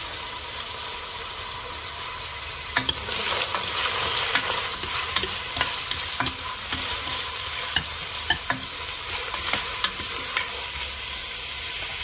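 Sliced shallots, garlic, chilies and pandan leaves sizzling steadily in oil in a stainless steel pot. From about three seconds in they are stirred, with sharp, irregular clinks of a utensil against the metal pot.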